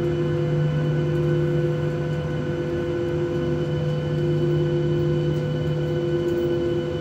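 Boeing 737-800's CFM56 jet engines at taxi idle heard from inside the cabin: a steady hum with a few held tones over a rushing hiss.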